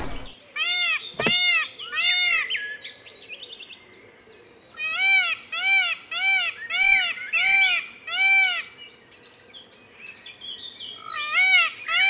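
Male Indian peafowl (peacock) calling in runs of short, loud honks, each rising and falling in pitch: three in a row, then after a pause six in quick succession, and another run beginning near the end.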